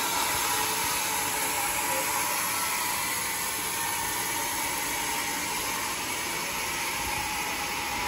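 Sawmill saw running and cutting through a large teak stump: a steady mechanical noise with a steady tone in it.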